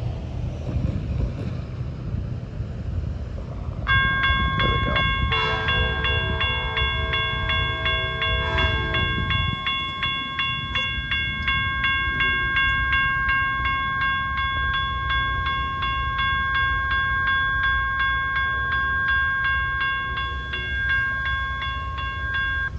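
Amtrak P42 diesel locomotive rumbling slowly by. About four seconds in, a bell starts ringing rapidly and keeps on, and the locomotive's horn sounds one long blast of several notes from about five to nine and a half seconds in.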